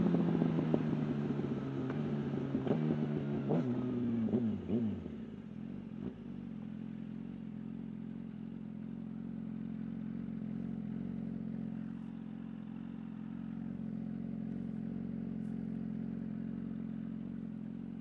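Yamaha R1's inline-four engine slowing down, its note falling steeply with a few brief rises, then a single clunk about six seconds in as it settles into a steady idle.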